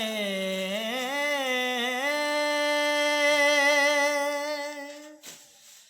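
Solo voice singing a naat, drawing out the last syllable of a line in a long held note that wavers in pitch, then settles and fades out about five seconds in.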